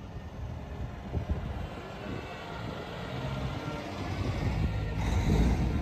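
Heavy trucks' diesel engines rumbling as trucks drive past, growing louder near the end.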